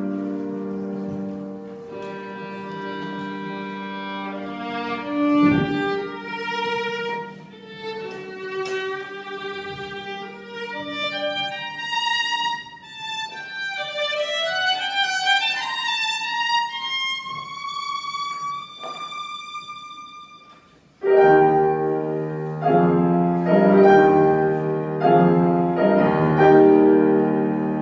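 Violin playing with piano accompaniment. A long upward run climbs to high held notes, the sound falls away almost to nothing for a moment about three-quarters of the way through, then both come back louder.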